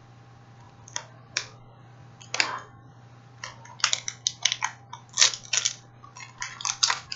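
Crinkling and crackling of a Kit Kat's plastic wrapper being handled: a few scattered crackles at first, then a dense run from about halfway through, over a faint steady hum.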